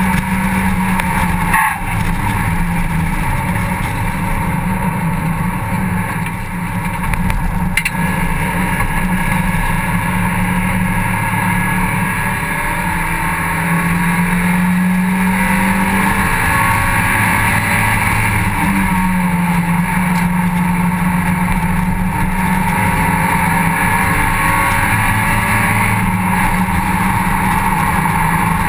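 Mazda MX-5 cup racer's four-cylinder engine running hard on track, heard from inside the open cockpit. The engine note steps up and down several times, and the level dips briefly about six seconds in. A sharp knock comes about two seconds in.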